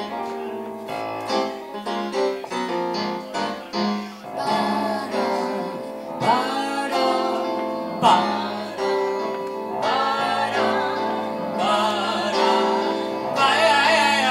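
Live song with an electronic stage keyboard playing chords, and a voice singing over it from about four seconds in.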